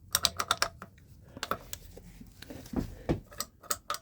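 Quick runs of sharp metallic clicks, about eight a second, like a ratchet, as the two-stroke engine is worked on by hand. There is one run at the start and another a little past three seconds in, with a few duller scrapes just before it.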